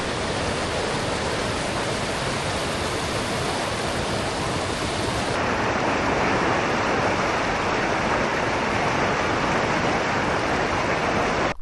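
Creek water rushing and splashing, a steady loud roar. About halfway through it turns duller and heavier, with less hiss.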